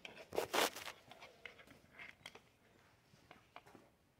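Rustling and scraping from handling as the person moves: a short rasping scrape about half a second in, then a few faint scuffs and taps.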